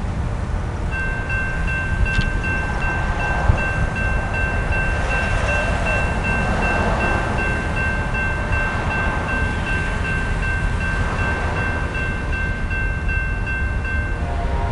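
Railroad crossing signal bell ringing in rapid, evenly repeated dings, warning that a train is approaching while the crossing gates lower. It starts about a second in and stops just before the end, over a steady low rumble.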